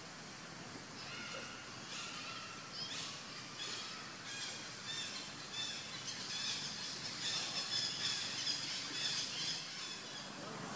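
A run of short, high-pitched animal calls, squealing notes repeated many times, starting about a second in and growing busier and louder in the later part.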